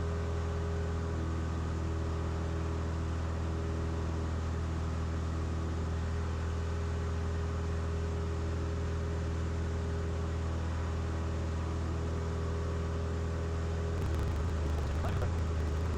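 Steady drone of a Cessna Skyhawk's piston engine and propeller at climb power, heard inside the cabin. The low drone changes slightly and roughens a couple of seconds before the end.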